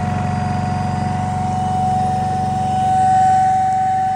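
Electric air pump running steadily, inflating the air beams of an inflatable tent: a low motor hum with a constant whine on top, swelling a little about three seconds in.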